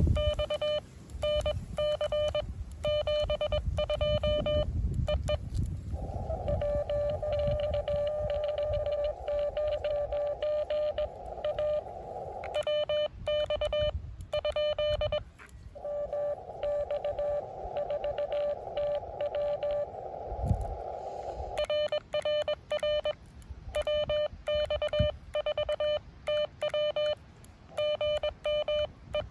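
Morse code (CW) from an amateur radio transceiver: one steady tone keyed on and off in dots and dashes. Twice, for about six seconds each, the code is heard over a narrow band of hiss, as incoming code through the receiver's CW filter.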